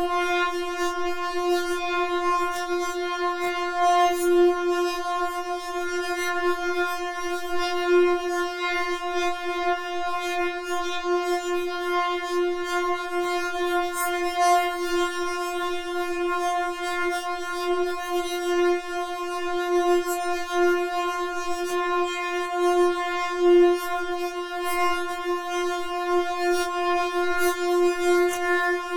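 Synthesizer holding one steady, buzzy mid-pitched note without a break, its loudness wavering slightly, with a few faint clicks.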